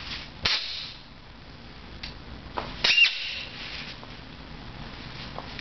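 Red rubber squeaky ball toy squeaking in a dog's jaws as he chews it: a few short, sharp squeaks, the loudest and most tonal about three seconds in.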